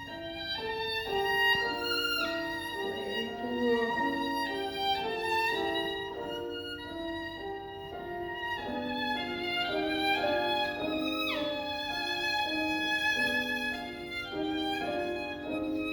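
Solo violin playing a melodic passage of held notes, changing pitch every half-second or so.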